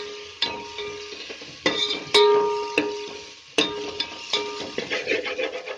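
Onions sizzling in oil while a metal spoon stirs them in an aluminium pot, with scrapes and about half a dozen sharp knocks of the spoon against the pot. Several knocks leave the pot ringing briefly with a clear tone, the loudest about two seconds in.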